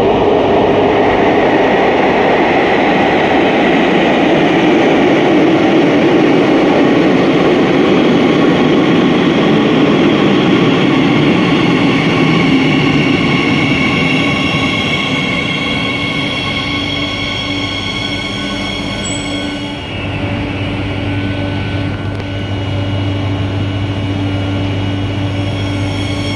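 CAF Series 8000 metro train pulling into an underground station: a loud rumble as it runs in from the tunnel and along the platform, then several high steady electric tones as it slows. It comes to a stand about 20 seconds in, leaving a steady low hum from the stationary train.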